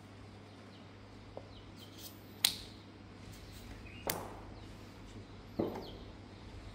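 Three sharp knocks about a second and a half apart, the first the loudest, over a faint steady low hum.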